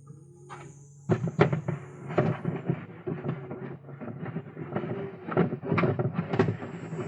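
Pigeons in a loft: low cooing, then from about a second in a dense run of rapid clattering and flapping as the birds move about.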